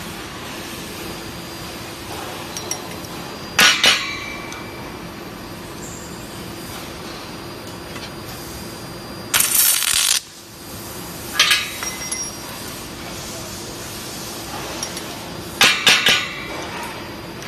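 Drawn-arc stud welding of steel shear studs through ceramic ferrules: one loud crackling hiss of the welding arc lasting under a second about nine and a half seconds in, with shorter sharp metallic clinks and crackles around it as studs are loaded and welded. A steady hum runs underneath.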